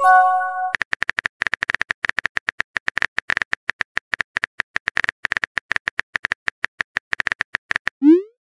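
Simulated phone-keyboard typing clicks, rapid and even, as a text message is typed out. A short chat pop tone comes first, and a quick rising swoosh of a sent message near the end.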